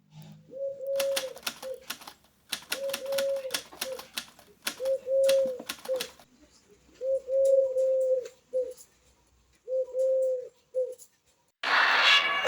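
A dove cooing: a low three-note phrase, a short note, a longer one and a short one, repeated five times about every two seconds. A scatter of sharp clicks runs through the first half, and music starts near the end.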